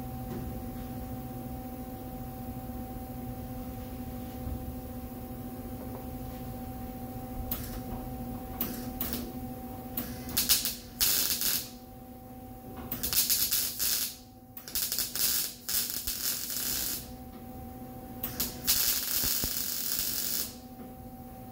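MIG welder arc crackling as the replacement trunk gasket channel is welded into the sheet-metal trunk: a few short tack bursts, then four longer welds of one to two seconds each. A steady low hum runs underneath.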